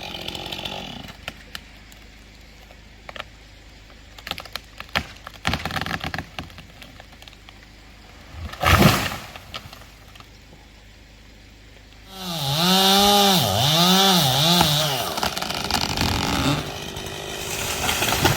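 Scattered knocks and cracks, with one loud crash about halfway through. Then a chainsaw starts up: it is revved up and down several times in quick succession and then keeps running.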